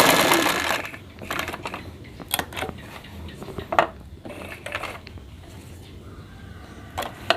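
Black domestic sewing machine running a test seam after its upper thread tension was tightened to stop thread bunching under the fabric. It stops about a second in, followed by scattered light clicks and rustles.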